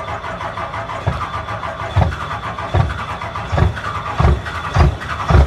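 A vehicle engine starting and running, with low thumps about once a second that come closer together toward the end.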